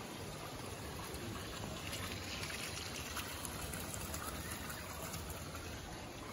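Water gushing and trickling steadily, a little louder for a few seconds in the middle.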